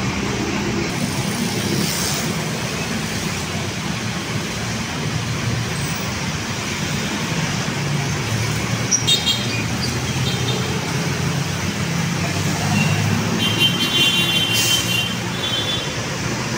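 Road traffic on a busy city boulevard: engines of passing cars and buses running in a steady rumble. Brief high-pitched squeals sound about nine seconds in and again near the end.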